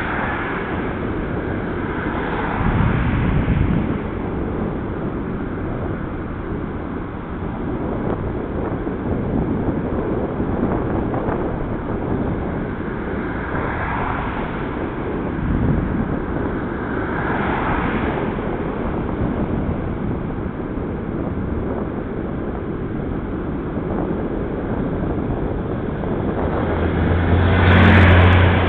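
Steady wind rush on the microphone of a bicycle-mounted camera while riding, mixed with road noise. It swells now and then, and grows louder near the end as a car goes by with a low engine hum.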